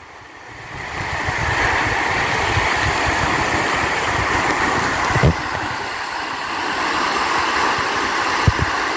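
Waterfall rushing: a steady noise of falling water that swells up over the first second or so, with an uneven low rumble underneath. There are two short knocks, one about five seconds in and one near the end.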